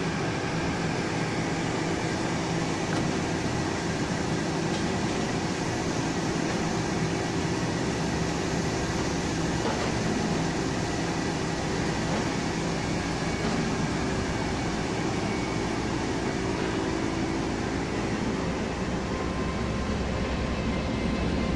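Taiwan Railway EMU500 electric multiple unit: a steady hum from its air-conditioning and on-board equipment, with a low rumble growing from about nine seconds in as the train starts to roll past.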